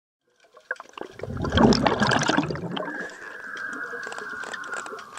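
A rush of water that rises quickly, is loudest about a second and a half in, and then settles into a steadier, fainter hiss with small scattered clicks.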